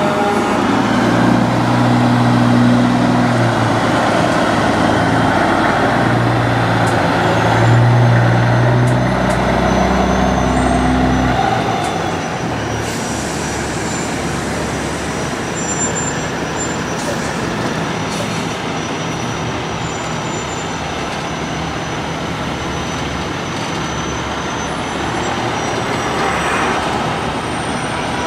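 Peterbilt semi tractor's diesel engine pulling a loaded lowboy trailer past, a loud low drone whose pitch shifts as it accelerates. It fades after about eleven seconds into quieter, steady truck and traffic noise. An air horn trails off at the very start.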